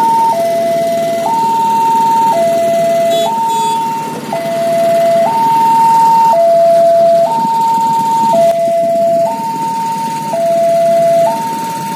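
Railway level-crossing warning alarm: an electronic two-tone signal alternating high and low, each note about a second long, sounding while the barrier is down to warn of an approaching KRL commuter train. A steady low rumble lies underneath.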